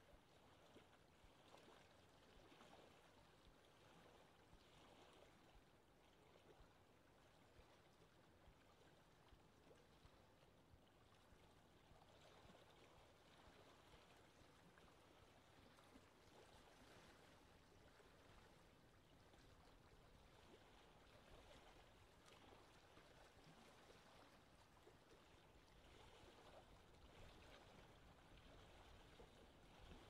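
Faint, steady wash of small waves lapping at the lakeshore, with a low rumble creeping in near the end.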